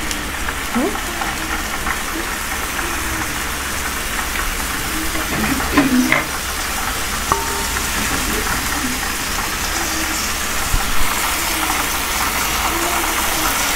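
Marinated lamb and sausages sizzling on a grill, a steady hiss over a low, even hum.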